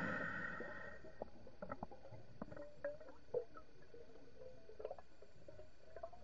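Heard underwater: the tail of a scuba diver's exhaled regulator bubbles fading away in the first second, then faint scattered clicks and short bubbly pops.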